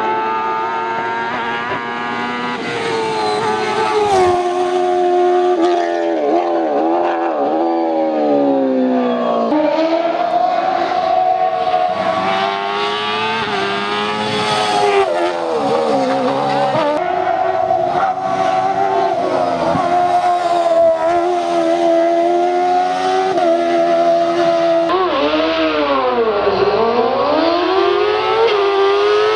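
Hillclimb rally car engines revving hard at full throttle, the pitch climbing through the gears and dropping sharply at each shift and braking point, with a deep drop and climb back near the end.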